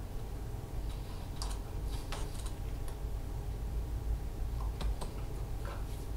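Scattered light clicks and taps, bunched about a second and a half in and again near five seconds, over a steady low hum.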